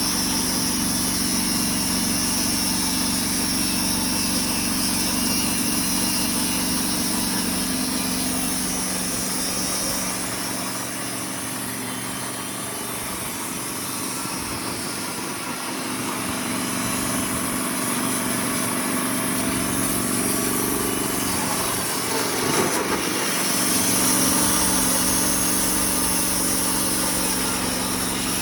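Hudson portable sawmill's engine running steadily while its blade saws through a Norway spruce log, with a high hiss over the engine note. The sound eases a little for a few seconds in the middle, and a single knock comes just after 22 seconds.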